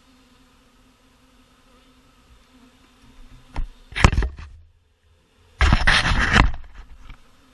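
Swarming bees: a faint steady hum, then two loud, close buzzing bursts as bees pass right by the microphone, the second lasting about a second and a half.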